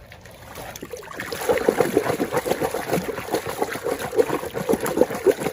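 Water trickling and splashing as a muddy toy vehicle is washed by hand, a busy run of small splashes that builds up about a second in.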